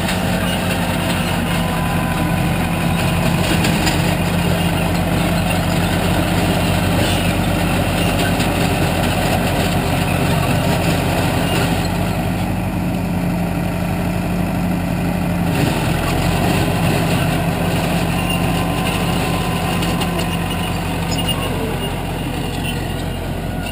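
Bulldozer's diesel engine running steadily at a constant pitch.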